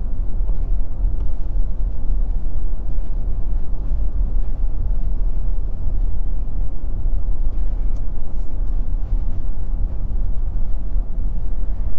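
Steady low rumble of road and engine noise inside the cab of a 2022 Nissan Frontier Pro-4X cruising at a constant speed.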